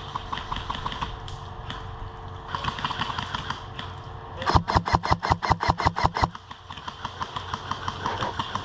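Airsoft electric guns firing in full-auto bursts, a rapid even rattle of about eight shots a second. Fainter bursts come from farther off, and a loud close burst of just under two seconds comes past the middle.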